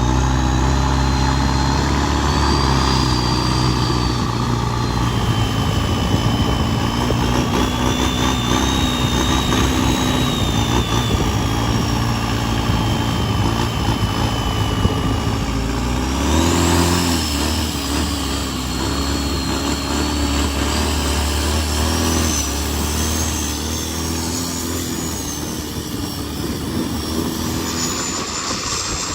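Isuzu turbo-diesel engine of a Thai longtail racing boat running hard, with a high whine that rises and falls over the engine note. About halfway through, the whine sweeps up sharply and the engine note changes.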